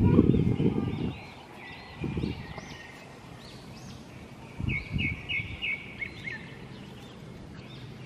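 Birds chirping and singing, with a quick run of four or five sharp chirps about five seconds in. A low rumble fills the first second, and a couple of short low bumps come later.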